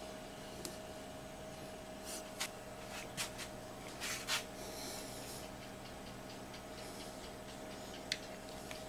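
Plastic action figures being handled and posed: a few light clicks, taps and brief rubbing noises, over a steady electrical hum.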